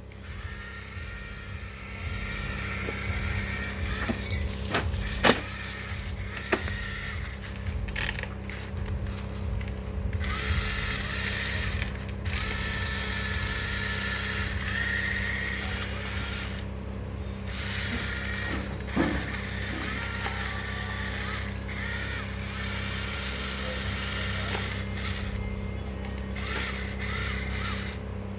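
Electric motors and hydraulic pump of a radio-controlled model excavator whining as they work, the pitch rising and falling as the arm moves, over a steady hum, with a few sharp clicks.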